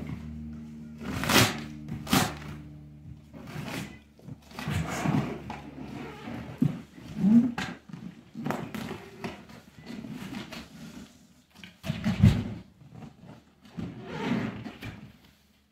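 Large cardboard boxes scraping and rustling against each other as a telescope's retail box is lifted out of its shipping carton, with a heavy thud about twelve seconds in.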